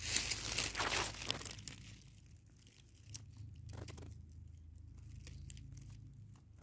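Dry leaf litter and orchid leaves rustling and crinkling as a hand parts the plant close to the microphone, loudest in the first two seconds, then a few faint crackles.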